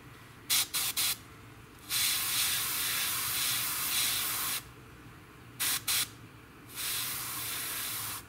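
Airbrush spraying in bursts: three quick short puffs, then a steady hiss of spray lasting nearly three seconds, two more quick puffs, and a second, softer hiss near the end.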